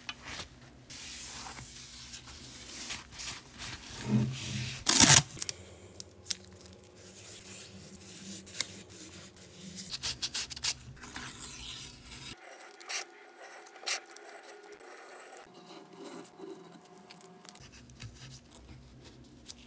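Blue painter's tape being pulled off the roll, torn and rubbed down onto a steel vise casting by nitrile-gloved hands: a run of tearing, crinkling and rubbing sounds, the loudest tear about five seconds in.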